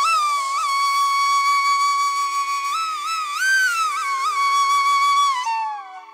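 Background music: a flute melody over a faint steady drone, gliding up into a long held note with a few pitch bends, then falling away about five and a half seconds in.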